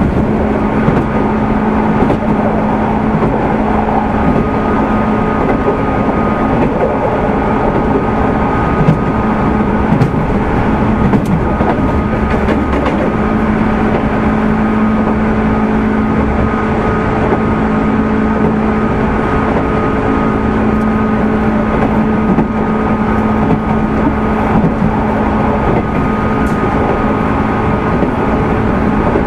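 Running noise heard inside a JR 205 series 600-subseries electric train motor car. The traction motors, fitted with external cooling fans, give a steady hum at an even speed over the rumble of the wheels on the rails, with a few light clicks.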